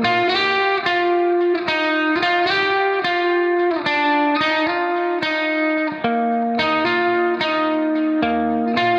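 Background music: a guitar playing a run of plucked notes, a new note every half second or so, at an even loudness.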